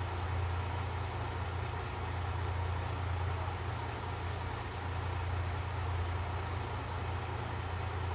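KiHa 54 diesel railcar's engines idling steadily, a constant low hum.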